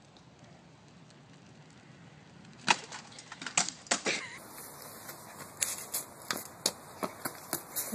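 A quiet start, then a run of sharp, irregular clicks and knocks, the first and loudest about two and a half seconds in, continuing on and off to the end.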